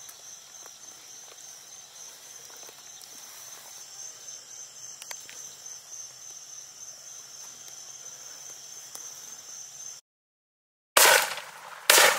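Crickets and other night insects chirring in a steady, high pulsing trill. About ten seconds in the sound cuts out, and a second later two loud rifle shots ring out about a second apart.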